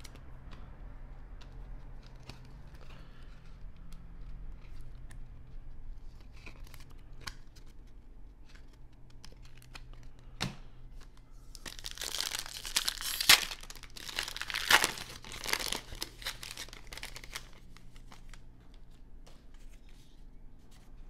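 Light card handling clicks, then about twelve seconds in a foil baseball-card pack wrapper crinkling and tearing open for about five seconds, with two sharp cracks in the middle.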